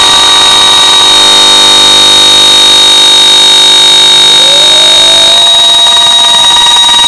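Very loud, sustained drone of many steady ringing tones from a guitar-amp app's hall reverb, like a self-sustaining reverb wash or feedback. A tone slides upward about four seconds in, and the sound thins a little after five seconds as the reverb's high-cut knob is turned.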